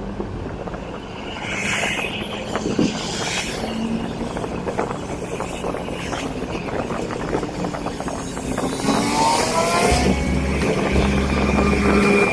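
A car driving, its engine and road noise running steadily, with low bass notes coming in near the end.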